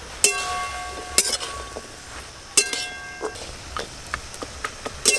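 Metal spatula striking and scraping a metal karai while stirring greens. Three sharp clinks, each followed by about a second of ringing from the pan, with lighter taps in between and another clink at the end.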